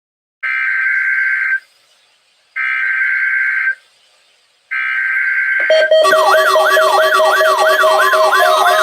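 Emergency Alert System SAME header: three data bursts of about a second each, with short silent gaps between them. A loud siren-like alert tone follows, with a rapidly repeating rising sweep over steady tones.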